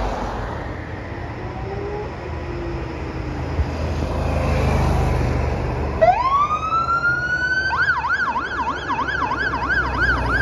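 Fire truck's electronic siren starting up: about six seconds in it winds up in a rising wail, then switches to a fast up-and-down yelp of about three cycles a second. Before that, only low road traffic and engine rumble.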